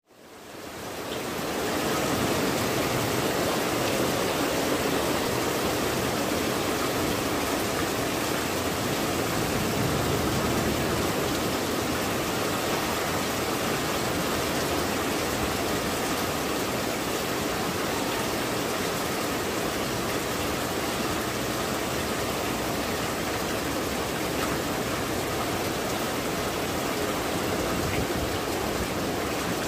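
Heavy rain falling steadily, fading in over the first two seconds and then holding an even, unbroken hiss.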